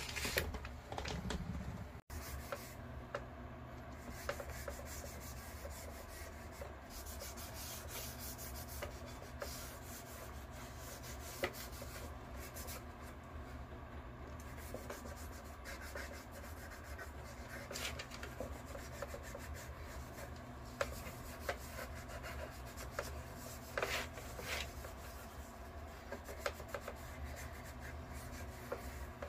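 A cloth rubbing oil into a bare wooden frame, a continuous scrubbing swish with a few light knocks as the wood is handled.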